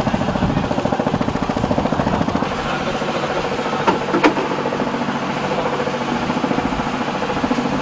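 A fishing boat's engine running steadily with a fast low pulse, with two short knocks about four seconds in.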